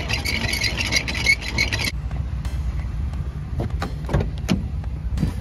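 Trailer tongue jack being hand-cranked: its gears make a rapid, high-pitched rattling squeak that stops about two seconds in. A few sharp knocks follow, over a steady low rumble.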